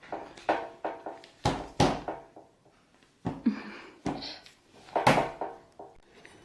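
Irregular knocks and clinks of spoons and bowls on a table, about ten over a few seconds, some ringing briefly.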